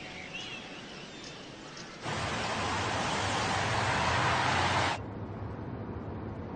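A Range Rover driving along a road: a steady rush of tyre and engine noise starts suddenly about two seconds in and cuts off about three seconds later. A quieter low hum follows, as heard inside the car's cabin.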